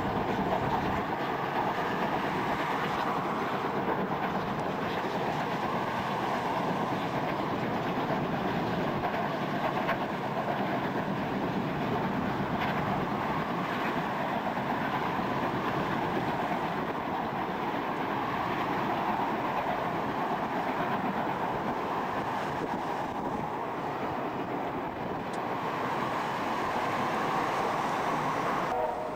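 Several vintage steam locomotives heading a passenger train, working hard and passing with a steady, continuous rumble of exhaust and rolling stock.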